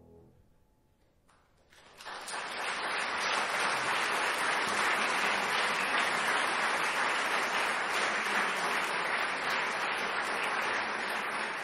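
A piano's final chord dies away, and about two seconds later an audience breaks into steady applause that carries on to the end.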